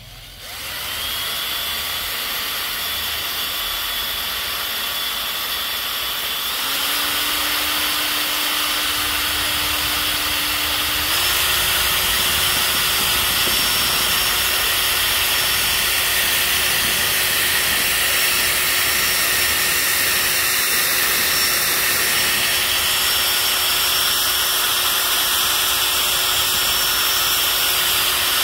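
Power drill driving a spiral paint-mixing paddle in a can of wood stain, its motor running steadily. The pitch and loudness step up twice, about 7 seconds in and again about 11 seconds in.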